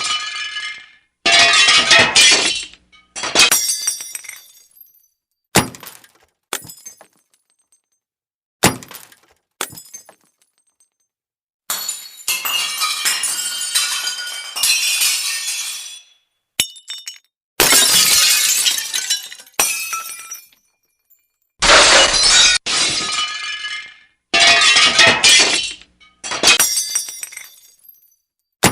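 Glass breaking and shattering, about a dozen separate crashes with tinkling shards. Each starts sharply and dies away, with silent gaps in between. One longer shattering run lasts several seconds around the middle.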